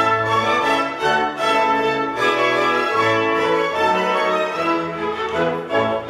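Orchestral background music led by bowed strings, moving through sustained notes.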